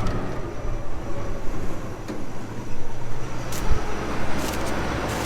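Combine harvester running, heard from inside the cab: a steady low drone of engine and machinery, with a few sharp clicks and a low knock between about three and a half and five seconds in.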